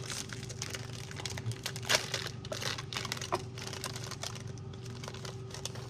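Plastic snack wrapper crinkling as it is handled and opened: a run of small irregular crackles, with a sharper one about two seconds in.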